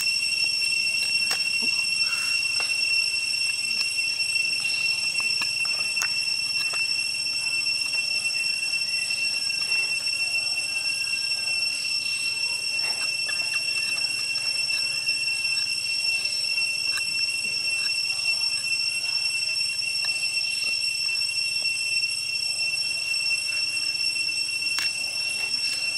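Steady, unbroken high-pitched drone of insects in the forest, one shrill tone with its overtones. Over it, scattered small clicks and scrapes of a knife whittling a stick and of corn husks being pulled off.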